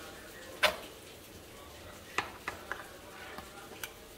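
Kitchenware being handled: one sharp knock a little over half a second in, then several lighter clicks and taps in the second half.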